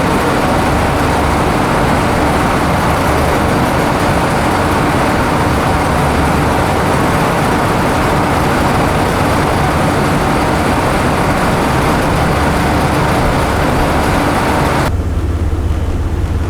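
Loud, steady wind rushing over the microphone on the deck of a cargo-passenger ship, over the low drone of the ship's engines. Near the end the wind noise cuts off suddenly, leaving the engine drone.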